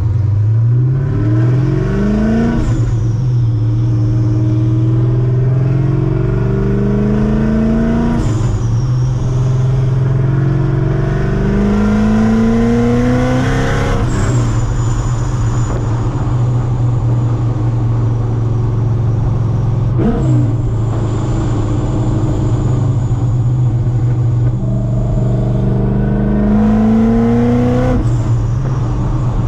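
Supercharged LS7 V8 of a C6 Corvette Z06 pulling hard through the gears, its pitch climbing several times. Each gear change brings a sharp burst and a high whistle that trails off, the new blow-off valve venting boost.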